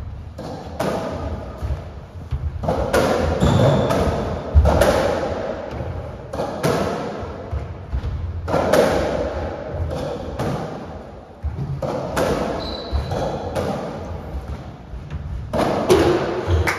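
Racketball rally on a squash court: the rubber ball is struck by strung rackets and smacks off the walls in quick, irregular succession.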